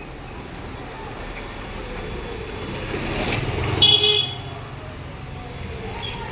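A vehicle horn toots once, briefly, about four seconds in, over the low rumble of passing road traffic.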